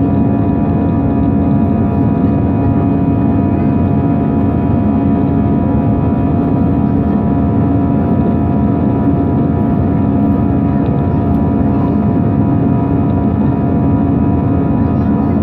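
Cabin noise of an Airbus A319-112 in flight, heard from a window seat beside the wing: the steady drone of its CFM56-5B turbofan engines, a broad rush with several steady hum tones through it.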